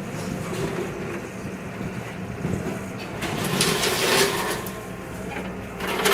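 Excavator's diesel engine running steadily. About three seconds in, a loud stretch of scraping and crunching as the machine works fire debris, with more starting near the end.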